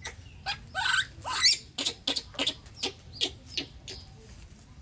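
Baby macaque giving a quick series of short, high-pitched squeaks and chirps, several a second, some rising and falling in pitch.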